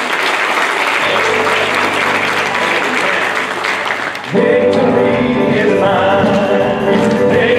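Congregation applauding. About four seconds in, the church band and singers come in loudly with a song.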